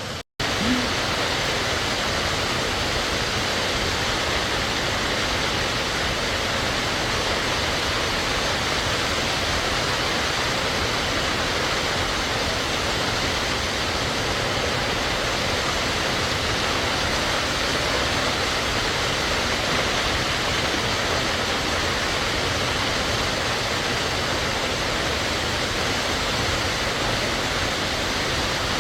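Warm Springs Falls, a waterfall, pouring with a steady, even rush of falling water. A split-second dropout comes just after the start.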